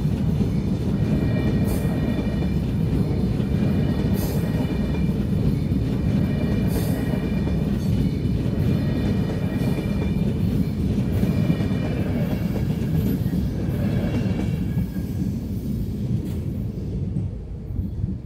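Locomotive-hauled passenger train of InterJet coaches passing close by at speed: a loud, dense rumble of wheels on rails with a few clacks, fading away near the end as the last coach clears.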